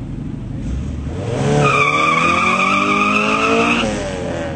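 Drag-racing cars accelerating hard down a quarter-mile strip: about a second in, the engines rev up, rising in pitch, and a loud, steady tyre squeal lasts about two seconds before fading.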